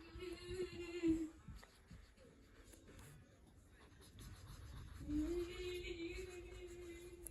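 A girl humming one long, steady note that stops about a second in and starts again about five seconds in. Between the notes come faint taps and scratches of a marker on paper.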